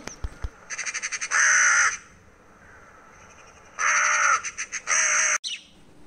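A crow-family bird calling: a quick rattle of clicks running into a harsh, drawn-out call about a second in, then two more harsh calls close together near the end.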